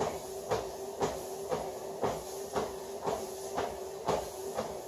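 Treadmill at walking pace: footsteps landing on the moving belt about twice a second, over a steady motor hum.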